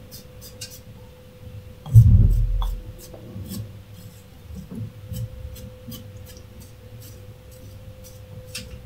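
Yuma safety razor with a Shark double-edge blade scraping through lathered stubble on the neck in many short strokes. About two seconds in there is one louder low thump, and a faint steady hum runs underneath.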